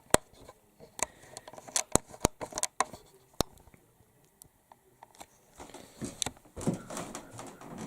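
Scattered single clicks of computer keys, struck unevenly a few at a time. They pause for about two seconds midway, then come again with a soft rustle near the end.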